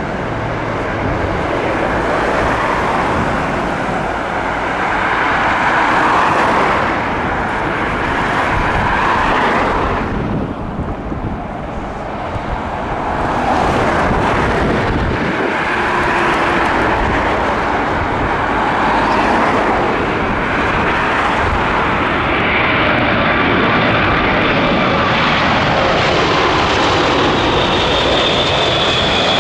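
Boeing 747-400's four Rolls-Royce RB211 turbofan engines on landing approach, a steady roar that grows louder about halfway through as the jet nears. A high engine whine comes in over the last few seconds as it draws close.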